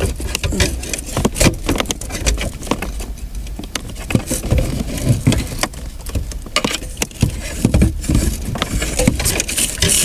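Hands working wires and plastic plugs on the back of a car stereo: irregular clicks, knocks and rustling.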